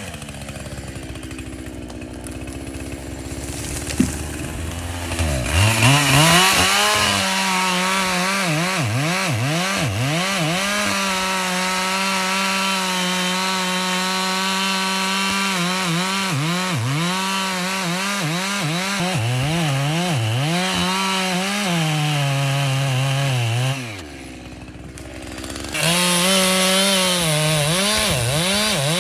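Chainsaw idling, with a sharp click about four seconds in, then revved to full throttle and cutting into ash wood, its pitch dipping and recovering again and again as it works through the cut. Near the end it drops back to idle for about two seconds, then revs up again.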